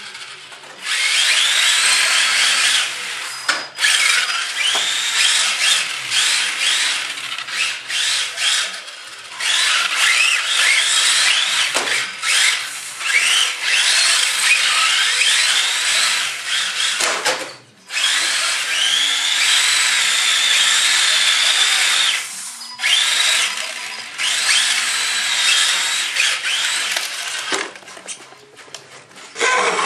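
Whine of the Axial 20-turn brushed electric motors and gears of Tamiya TT-01E radio-controlled touring cars, rising and falling in pitch as the throttle is worked, over the hiss of tyres sliding on a concrete floor as they drift. The whine drops out briefly twice, a little past halfway.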